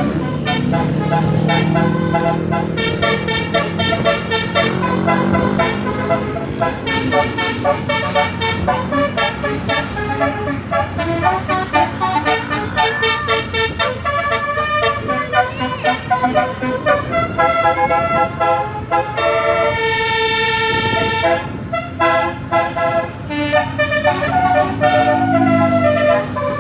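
Bus basuri telolet horn playing a long run of quick melodic notes that change pitch rapidly, with one longer held chord about twenty seconds in, over the low rumble of the bus engine.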